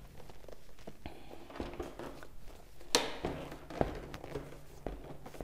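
A motorcycle seat is handled and fitted back onto a Triumph Trident 660, with soft rustling and knocking. About three seconds in there is a sharp click as the seat is pressed into place, then a lighter knock.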